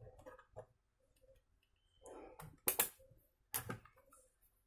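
A few sharp plastic clicks and knocks from a laptop's case being handled, in a quick cluster from about two and a half to four seconds in.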